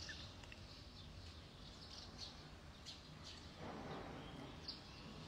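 Near silence: faint room tone with a few faint, short high chirps.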